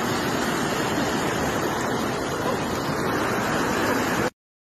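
Steady rushing of a swollen, muddy river in flood, its fast water churning over the bank and road edge; the sound cuts off suddenly near the end.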